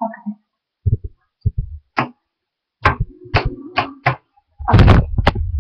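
Irregular knocks and clicks of things being handled. Near the end comes a louder stretch of bumping and low rumbling: handling noise on the microphone as the webcam is moved.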